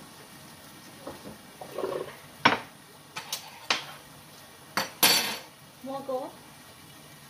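Kitchen clatter of a metal spoon and cookware: about five sharp clinks and knocks in a row, the loudest two and a half and five seconds in.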